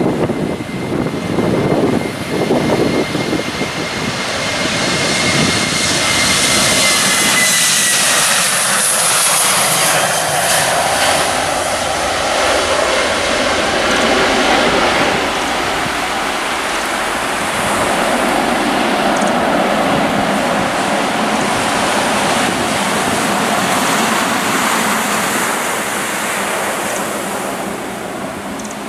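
Boeing 737-800's CFM56-7B turbofans at takeoff power as the jet rolls, lifts off and climbs away: loud, steady jet noise with a high whine that drops in pitch about seven seconds in as the aircraft passes.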